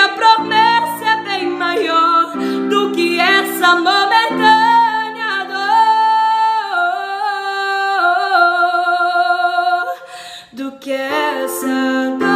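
A woman singing a worship song in long held notes with vibrato and melodic runs, over an accompaniment of sustained chords. Her voice breaks off briefly about ten seconds in, then resumes.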